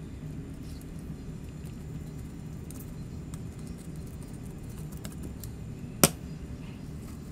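A knife cutting along a fish on a plastic cutting board: faint small scrapes and ticks over a steady low hum, with one sharp knock about six seconds in.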